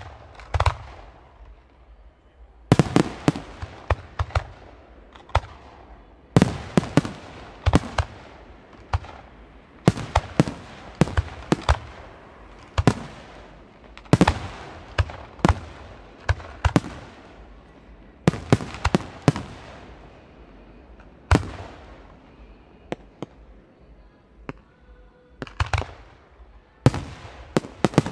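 Aerial firework shells bursting in quick succession: sharp bangs, often several close together, each with an echoing tail, with short lulls between the volleys and a quieter stretch about two-thirds of the way through.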